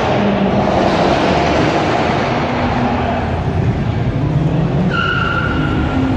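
Car engines running and revving in a covered car park, a loud steady din, with a brief high squeal about five seconds in.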